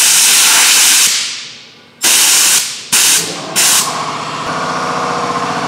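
Compressed air hissing from an air nozzle as it is blown under a rubber handlebar grip to inflate it and slide it onto the bar: one long blast, then three short ones. About four seconds in, a steady mechanical hum starts and keeps going.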